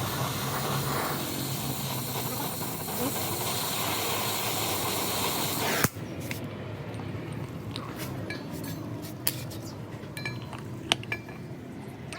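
A steady hissing workshop noise that cuts off suddenly about six seconds in, followed by scattered light metallic clinks and clicks.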